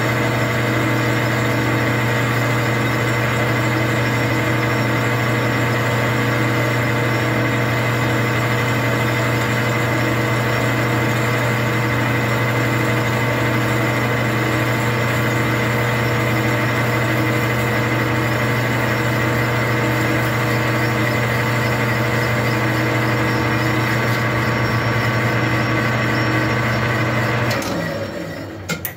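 Metal lathe running steadily with a constant motor and gear hum while it turns a chainsaw cylinder for a light facing cut on the squish band. About a second and a half before the end it is switched off and the sound falls away as it winds down.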